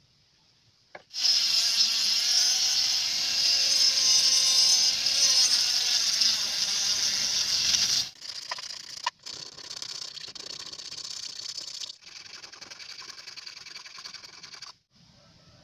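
Mini rotary grinder with a small cutting disc cutting through a strip of gas-lighter plastic: a loud, steady, high whine that starts about a second in and stops at about eight seconds. After that comes quieter, uneven scraping as the cut plastic edge is worked by hand against a wooden block.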